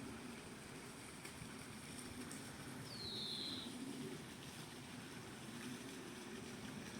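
Faint outdoor ambience: a low, steady murmur, with one short falling whistled bird call about three seconds in.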